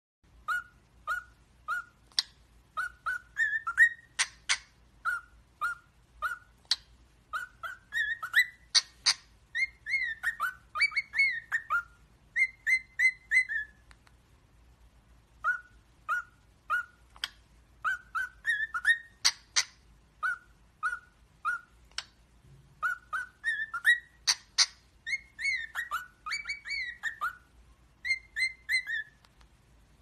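Parrot whistling a tune in short, clear notes, in quick phrases that rise and fall. The whole tune plays through once, pauses for about two seconds in the middle, and then repeats.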